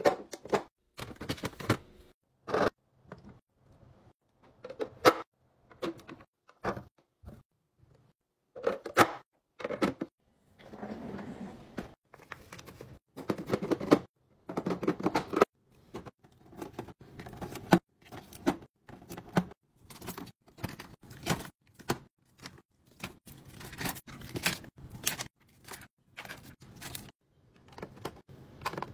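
Handling sounds of packing food into a fridge: many short clicks and knocks of clear plastic bins and containers being set down and fitted into place, with a few longer stretches of food packaging rustling.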